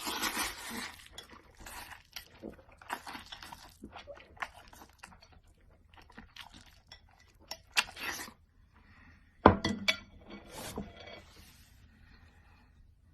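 Eating noises: crunching food, with scattered clinks and knocks, the sharpest about eight and nine and a half seconds in.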